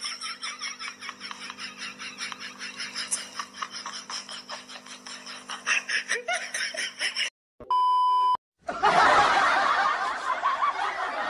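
A woman laughing in rapid, repeated pulses. About seven and a half seconds in, the laughter stops and a short beep tone sounds. It is followed by a louder, rougher stretch of sound.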